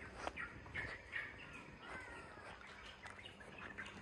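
Faint bird chirps and short calls, scattered irregularly over a low outdoor background hum.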